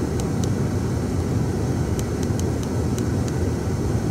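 Steady low rumble inside the cabin of a Toyota Avalon idling with its engine running, with a few faint clicks as the dash cam's menu buttons are pressed.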